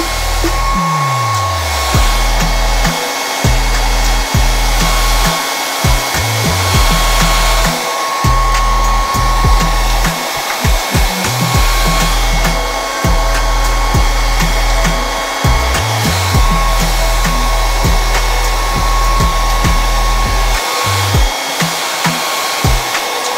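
Handheld hair dryer running steadily: a rush of air with a steady motor whine, and background music underneath.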